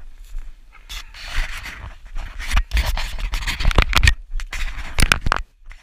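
Rustling and scraping of dry grass and scrub brushed by someone walking through it, with footsteps and handling thumps. Quiet for about the first second, then irregular rustles and sharp scrapes.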